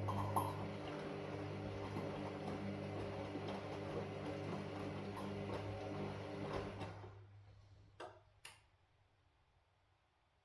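Washing machine motor running with a steady hum and a rattle of small ticks, then winding down and stopping about seven seconds in. Two sharp clicks follow about a second later.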